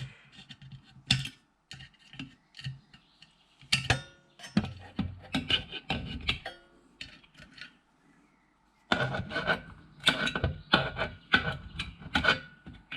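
Wire cutters snipping through cables and the pulled-out wiring and metal parts of a dismantled RF amplifier clicking and rattling as they are handled. The sounds come as irregular bursts of sharp clicks and scrapes, with a pause of about two seconds past the middle.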